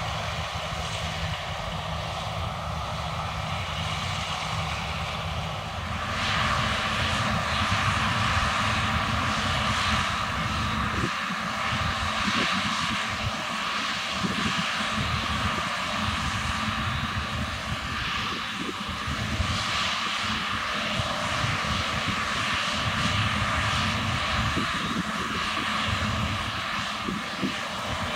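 John Deere combine harvester running through the crop, a steady mechanical drone with a whirring hiss; it grows louder about six seconds in.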